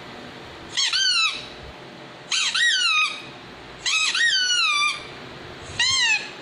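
Squeaky toy squeaked four times, each squeak lasting about half a second to a second and rising then falling in pitch.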